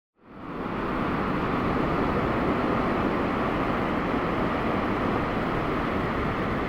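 Steady noise of ocean surf from a typhoon swell, fading in over the first half-second.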